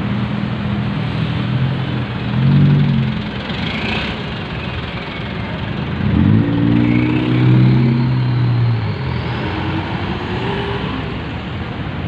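Road traffic close by with passing vehicle engines: a car's engine swells briefly about two and a half seconds in, then a light box truck's engine revs up about six seconds in and pulls past for a few seconds.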